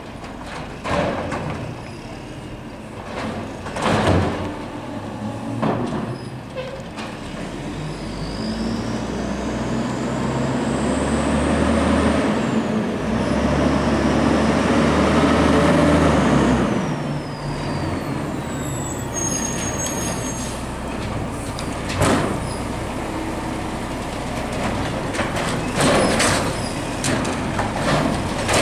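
Mack automated side-loader garbage truck at work: its arm dumps carts into the hopper with several sharp bangs. Around the middle the diesel engine revs up for several seconds, with a whine that rises and then falls, to power the arm and packer hydraulics, then drops back to idle.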